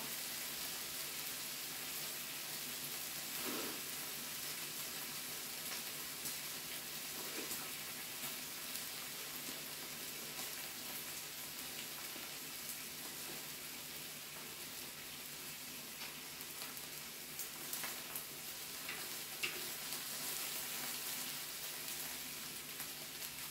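Meat and kimchi sizzling steadily on a hot Korean barbecue grill, with a few faint pops and ticks. The heat is high enough that the kimchi is starting to burn.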